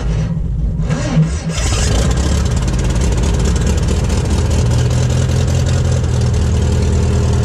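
Pitts S-1S biplane's engine starting: it turns over briefly, catches about a second and a half in, and then runs steadily with the propeller turning.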